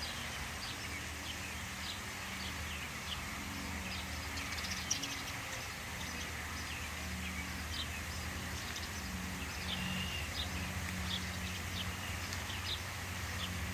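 Italian honeybees buzzing at an open hive: a steady low hum that swells and fades as bees fly close by. Small birds chirp briefly many times through it.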